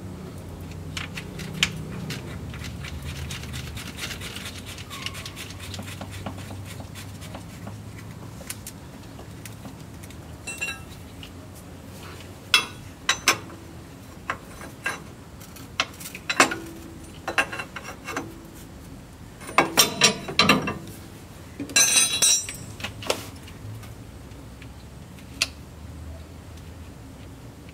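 Scattered metallic clicks, clinks and short rattles of hand work as the electric four-wheel-drive actuator is threaded into the front differential housing and its connector refitted. The clicks come in brief clusters in the second half.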